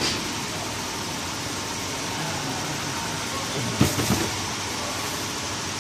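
Steady machinery noise of a running factory food-processing line, with a short burst of knocks about four seconds in.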